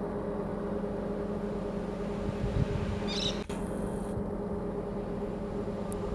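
Steady low mechanical drone of an engine running, with a brief low thump a little after two seconds and a short high bird call about three seconds in.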